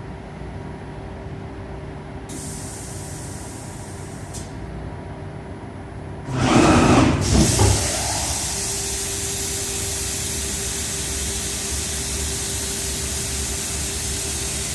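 Laser cutting machine running with a steady hum and held tone. About six seconds in comes a loud, brief burst with gliding whine-like pitches: the Z axis moving and making its abnormal extraneous noise. A steady hiss follows.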